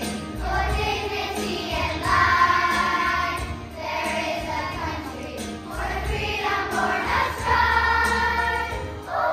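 Children's choir singing with instrumental accompaniment, in long held phrases.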